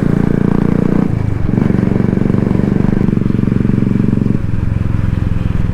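Royal Enfield Classic 350's single-cylinder engine running under way with a steady thump. There is a brief dip about a second in, and the engine eases off near the end.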